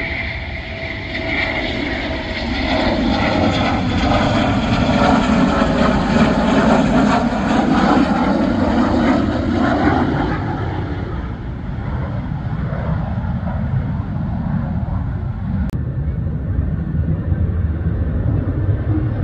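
Military fighter jet flying past, its engine roar swelling to its loudest midway and then easing off, with a faint whine falling slowly in pitch early on.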